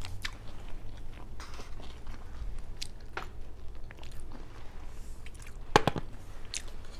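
Close-miked chewing and wet mouth clicks while eating, with an edamame pod pulled between the teeth to squeeze out the beans. A louder sharp double click comes near the end.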